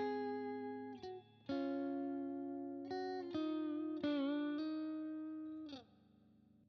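Electric guitar with a single-coil pickup played with a crunch tone: a handful of sustained notes and double-stops, each left to ring. One note wavers with vibrato about four seconds in, and the last note is cut off near the end.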